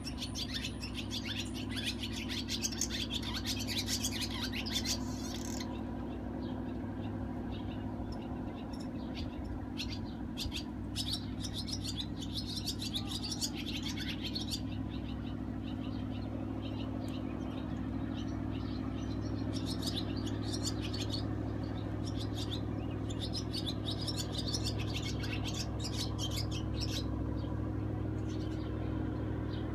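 Small birds chirping in quick runs of short, high calls, over a steady low hum.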